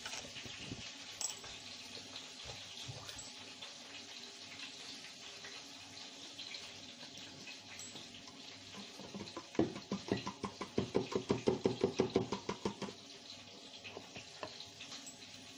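Liquid poured from a small carton into a plastic blender jar, with a fast glugging run for about three seconds past the middle, over a steady background hiss.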